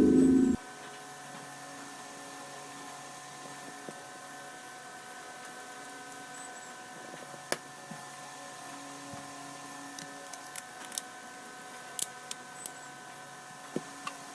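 Background music cuts off about half a second in, leaving a faint steady hum with scattered small clicks and taps, most of them in the last few seconds.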